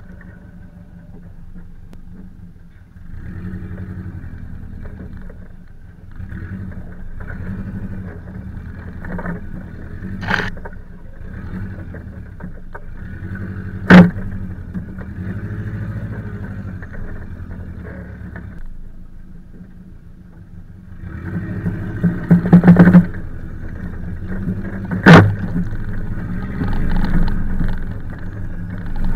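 Subaru Forester S/tb's turbocharged flat-four engine pulling the car over rough grassy ground, its sound rising and falling with the throttle. Sharp knocks break in several times as the car goes over bumps, the loudest about halfway through and about 25 seconds in, with a quick cluster of them shortly before.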